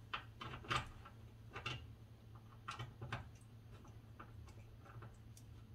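Irregular light clicks and taps of a hand-held T20 bit holder and plastic parts being handled and fitted inside a car door, over a low steady hum.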